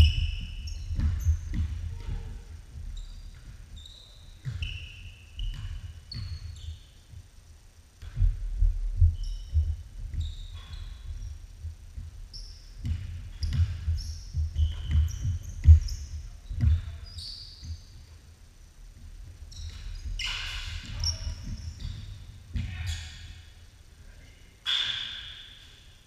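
Basketball dribbled on a hardwood gym floor in runs of thumps, with sneakers squeaking on the court and the echo of a large gym; players call out briefly near the end.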